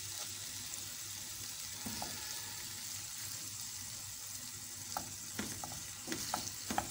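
Marinated beef pieces sizzling in oil in a frying pan, with a spatula stirring them and scraping and knocking against the pan a few times, mostly in the second half.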